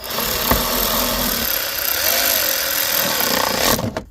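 Power tool running a 10 mm screw down, a motor whine that dips and recovers in pitch about two seconds in as the screw tightens, then stops suddenly near the end.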